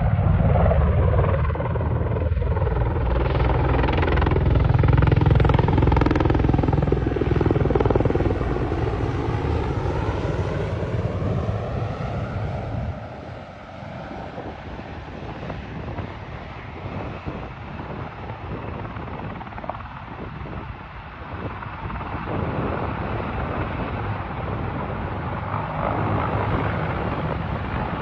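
Military helicopter passing close, its rotor thudding and turbine whining, loud for about the first twelve seconds with the pitch bending as it goes by, then quieter and steadier as it moves off.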